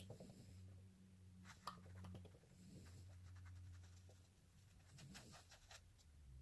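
Near silence: a steady low hum of room tone with a few faint light taps and rubbing.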